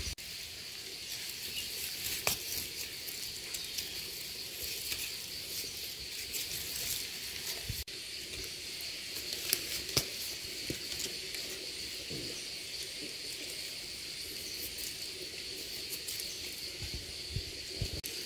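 A steady high-pitched insect drone goes on throughout, over a faint hiss. A few soft clicks and rustles come from a knife cutting mushroom stems in the dry leaf litter.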